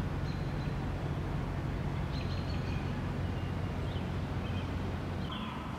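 Outdoor ambience: a steady low rumble with a few faint, short bird chirps over it.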